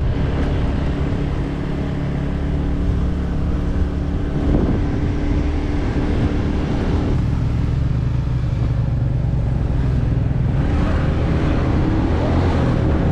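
Small motorbike or scooter engine running while riding along a road, its note shifting a few times, with wind and tyre noise.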